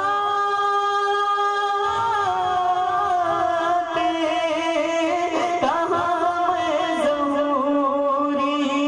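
A man singing an Urdu naat (devotional song) into a microphone. He holds long, drawn-out notes that slide slowly from one pitch to the next.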